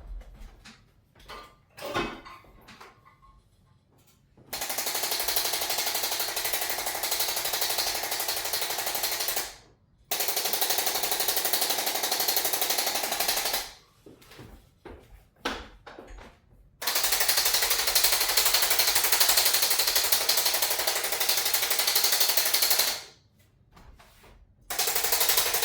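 Handheld electric percussion massager running in stretches of several seconds, a fast, even rattle that stops and starts about four times, with a few light clicks in the short pauses between.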